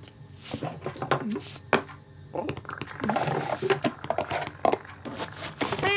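Cartoon sound effects: a few sharp knocks, then about three seconds of clinking and scratching as a tin of cat food is handled on the kitchen counter and the cat claws at the counter, ending with a short meow.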